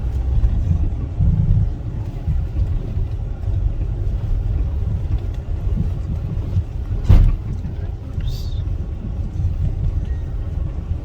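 Car on the move: a steady low rumble of engine and road noise, with one sharp knock about seven seconds in, the loudest moment, and a brief high squeak just after.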